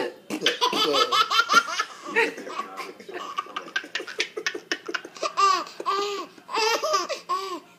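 A baby laughing hard in repeated bursts of short, high-pitched laughs, with a man laughing along.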